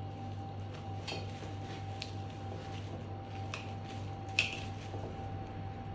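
Knife cutting along the popped rib joints of a fallow deer's saddle: a few short, faint clicks and scrapes of the blade against bone, over a steady background hum.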